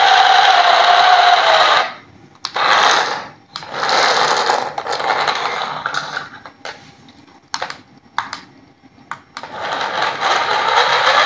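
Small electric motors and plastic gearboxes of toy remote-control cars whirring as the cars push nose to nose with their wheels spinning. The whirring stops and starts several times, with a few sharp clicks in the quieter stretch before it picks up again near the end.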